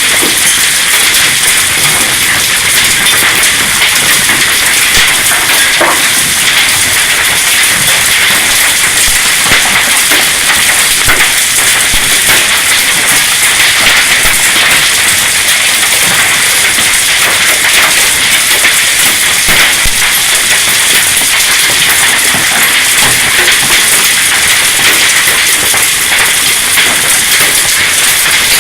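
Hail pelting down in a steady, dense hissing rattle of countless small impacts, with now and then a sharper single hit standing out.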